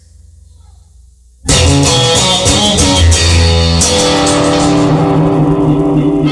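Rock music with guitar, bass and drums, starting abruptly about a second and a half in after a faint low hum.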